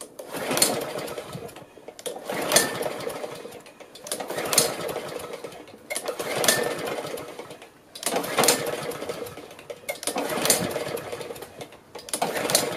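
Honda engine on a Snapper walk-behind mower being pull-started with the choke on: seven pulls about two seconds apart. Each pull is a short burst of cranking that dies away without the engine catching. It is a no-start, which the owner suspects is fuel starvation from a carburetor that needs cleaning.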